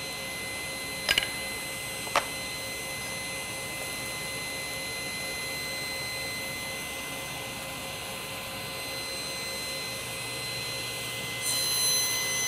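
Table saw running with no load, its spinning blade giving a steady whine, with two light knocks of wood on the crosscut sled near the start. Near the end a louder, hissier sound sets in as the blade begins cutting through the oak.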